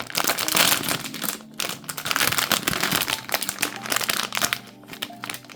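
Plastic packaging bag of a blind-box figure crinkling as it is handled and opened, rapid crackles with a couple of brief pauses.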